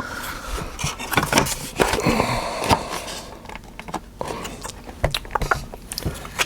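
Plastic trim parts of a car touch-screen assembly being pried and worked by hand: irregular sharp clicks and knocks with a stretch of scraping about two seconds in, as a stuck piece refuses to pop free.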